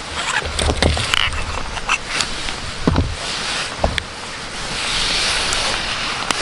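Scattered light clicks and knocks of a Malkoff MD3 flashlight being handled while its batteries are swapped, over a low rumble; a rushing hiss swells about five seconds in.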